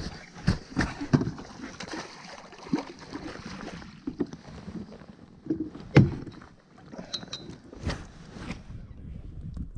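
Irregular knocks, clicks and bumps of handling on a fishing kayak, with the loudest thump about six seconds in.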